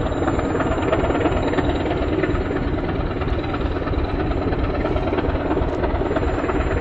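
Dg class English Electric diesel-electric locomotive passing close by while hauling a train, its diesel engine running loud and steady with a fast, rough pulsing beat.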